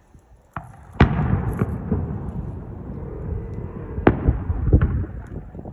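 Aerial fireworks shells bursting: a sharp bang about half a second in, a louder one at about a second, and two more near the end, with rumbling echoes between the bangs.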